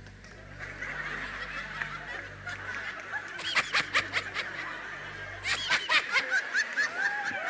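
Loud laughter in two quick bursts of rapid ha-ha pulses, about three seconds in and again near six seconds, over a low steady hum that stops around six seconds in.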